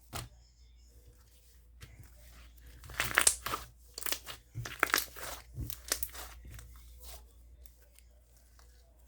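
Slime being worked by hand: a run of short, sharp crackling and popping sounds starting about three seconds in and lasting about three seconds, with quieter handling before and after.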